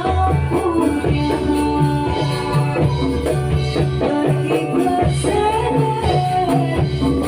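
Accompaniment music for the Javanese Ndolalak folk dance: a steady drum beat under a jingling, shaken percussion part and a melody line.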